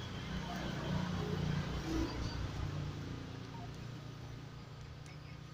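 A motor vehicle's engine running in the background, a low sound that swells a second or two in and then slowly fades.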